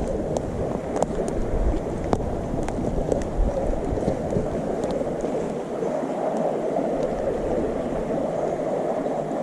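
Steady rush of flowing river water, with a few light clicks scattered through it.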